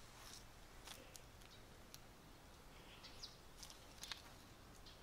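Near silence: faint scattered footstep clicks on a path, with one short faint bird chirp about three seconds in.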